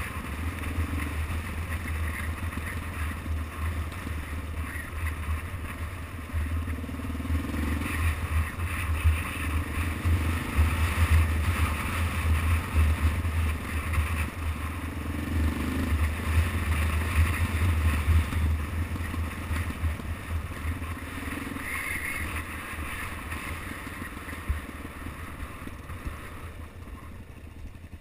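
Motorcycle running along a gravel road, heard from a camera mounted on the bike, with a steady low rumble. It quietens near the end.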